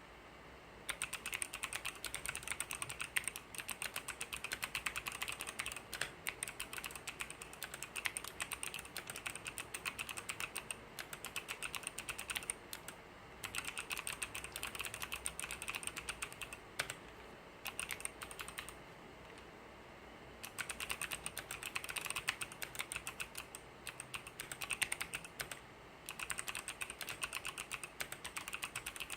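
Typing on a Hansung MKL16S mechanical keyboard with Kailh pink switches: fast runs of key clacks, broken by a few short pauses.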